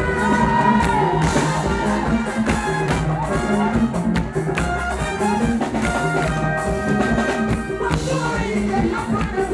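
Live band music with a steady beat played through a stage sound system, with a woman singing into a microphone.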